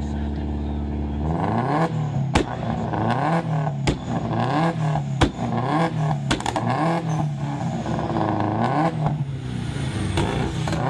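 Tuned Subaru Impreza's flat-four engine idling, then revved in repeated blips rising and falling about once a second, with loud exhaust pops and backfire bangs as the revs drop. A cluster of bangs near the end comes with flames shooting from the exhaust.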